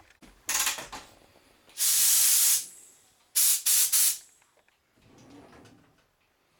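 Compressed-air blow gun with a long extension nozzle, fed by an air hose, fired in blasts of hissing air. There is a short blast, then a longer one of nearly a second, then three quick blasts in a row.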